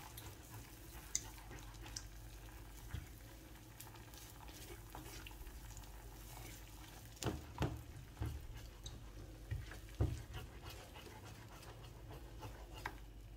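Eggs frying faintly in melted butter as a silicone spatula stirs and scrapes them around the pan to scramble them. There are a few soft knocks of the spatula against the pan in the second half.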